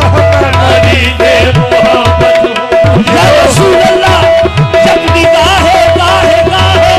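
Qawwali party performing: harmoniums holding a steady drone, tabla beating, and a voice singing wavering, ornamented runs over them.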